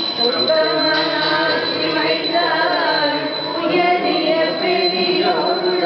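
Several women singing together, their voices overlapping and holding long notes.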